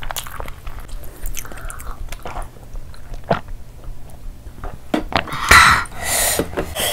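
Close-miked chewing and mouth sounds of people eating rice and curry by hand, with sips from drinking glasses and a louder burst of noise about five and a half seconds in.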